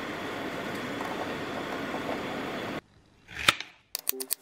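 Pot of water at a rolling boil with eggs in it, a steady bubbling hiss; it cuts off about three seconds in and a single knock follows. Near the end a knife starts chopping onion on a plastic cutting board in quick taps.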